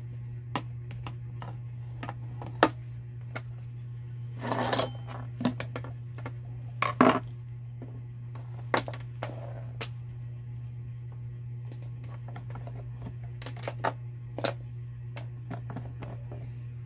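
Scattered clicks, knocks and rustling as an analog multimeter and its test leads are handled and set down on a wooden workbench, the loudest knocks about seven seconds in. A steady low hum runs underneath.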